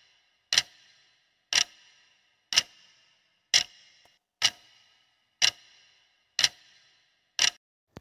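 Countdown-timer clock-tick sound effect: one sharp tick each second, eight in all, each with a short ringing tail.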